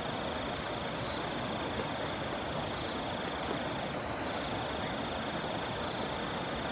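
Night outdoor ambience: a steady even hiss with an insect's continuous high trill over it, which breaks off briefly about four seconds in.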